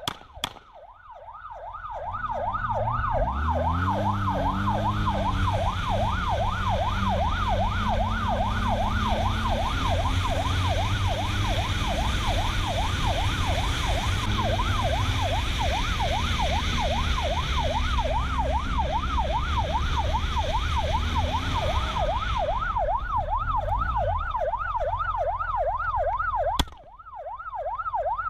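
Police car siren on a fast yelp, its pitch sweeping up and down a few times a second. From a couple of seconds in, heavy engine and road noise builds under it, the engine rising in pitch as the car speeds up. This fades out a few seconds before the end, leaving the siren alone, and a sharp click comes near the end.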